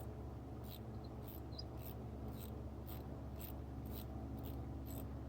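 Ratchet with a 5/8 spark plug socket clicking in short, faint strokes, about two a second, as an already loosened spark plug is backed out of a Dodge 4.7 V8.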